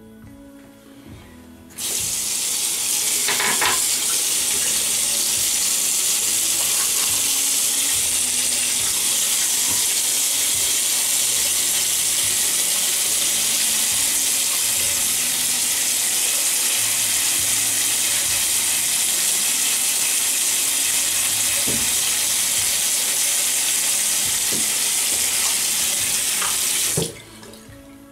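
Bathroom sink tap running at full flow, turned on about two seconds in and shut off about a second before the end, with a few light knocks under the water.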